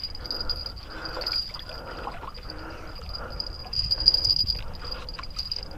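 A hooked small shark thrashing and splashing at the water's surface as it is reeled in on a bent rod, the loudest splashes about four seconds in, over wind rumble on the microphone and a steady high whine.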